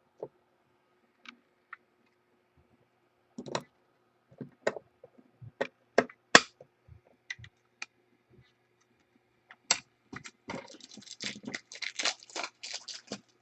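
Trading cards and hard plastic card holders being handled: scattered sharp clicks and taps, then a quick run of plastic rustling and crackling from about ten seconds in.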